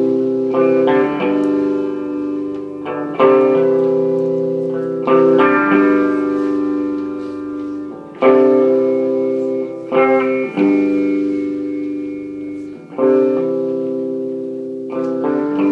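Guitar playing a slow, repeating chord progression, each chord strummed and left to ring for a couple of seconds before the next.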